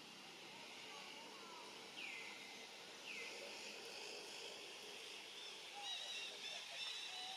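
Faint outdoor ambience of birds calling over a steady high hiss. Two calls sweep downward about two and three seconds in, and a run of quick short chirps comes near the end.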